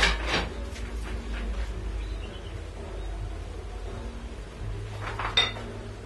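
Metal parts being handled on a workbench: a scraping clank at the start, then quieter handling noises, and one sharp metallic clink with a brief ring about five and a half seconds in.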